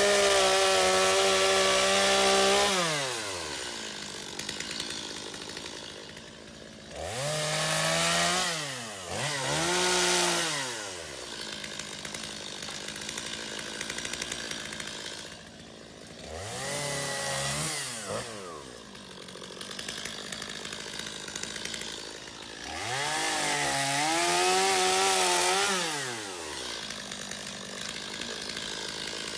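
Stihl MS250 two-stroke chainsaw revving to full throttle and dropping back to idle about five times, with a steady idle between revs, as it cuts up branches.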